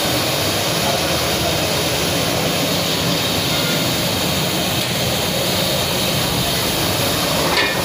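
Gas burners firing under large cooking pots, a steady, even rushing noise.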